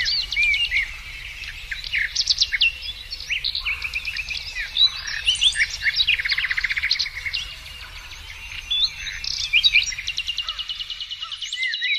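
A chorus of several songbirds singing at once: overlapping rapid trills, short chirps and quick whistled slides, with no pause.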